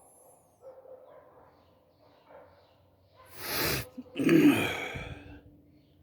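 A man coughs twice about three seconds in: a short breathy hack, then a louder, longer cough with voice in it.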